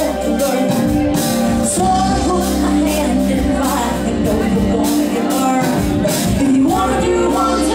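Live band music from saxophones, bass guitar, keyboards and drums, with a woman singing lead.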